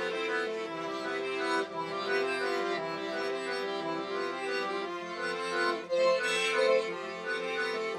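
Instrumental background music of sustained held notes and chords, swelling louder around six seconds in.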